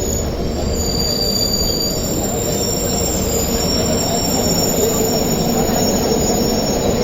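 Express train running at speed on the line: a steady rumble of wheels on the track, with thin high squealing tones held over it.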